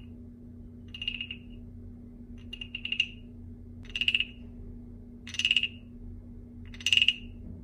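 Wooden frog guiro: a stick scraped along the carved ridges of a wooden frog's back, giving a rasping croak about six times, roughly once a second or so.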